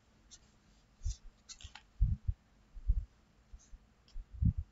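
A few short, dull low thumps, the strongest about two, three and four and a half seconds in, with faint clicks between them.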